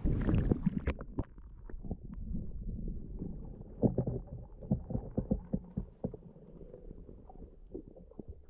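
Water heard through a camera that has gone under the surface: muffled low sloshing and rumbling with scattered knocks and pops, the high end cut off from the moment it goes under.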